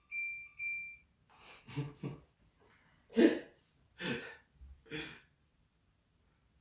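A water purifier gives two short, identical high electronic beeps, then a man laughs in several breathy bursts, loudest about three seconds in.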